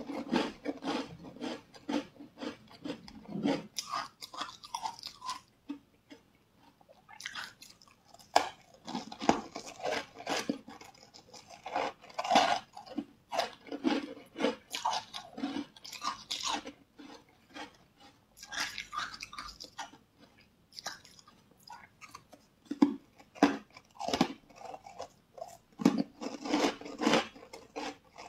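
Close-miked chewing and crunching of green powder-dusted bars, in bursts of crackly bites and chews separated by brief pauses.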